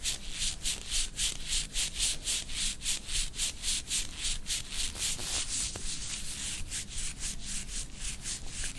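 Brisk rhythmic rubbing strokes, about four to five a second, as of hands or a tool rubbing back and forth over a patient's body during a chiropractic treatment.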